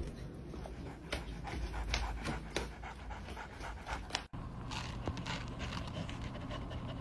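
A dog panting. After a brief break about four seconds in, a low steady hum runs under it.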